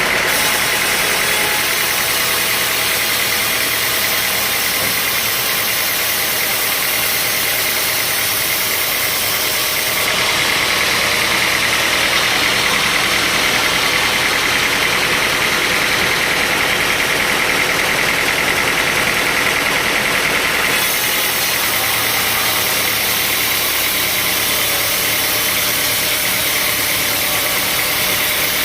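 Sawmill machinery running: a loud, steady mechanical drone with a constant high whine, changing slightly in character about ten seconds in and again about twenty-one seconds in.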